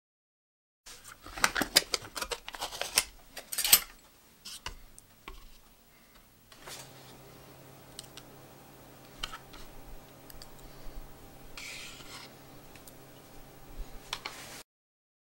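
Spoon scraping and clicking as thick yogurt is scooped into a stainless steel mixing bowl: a dense run of crackly scrapes and clicks for about three seconds, then scattered soft taps over a faint steady hum.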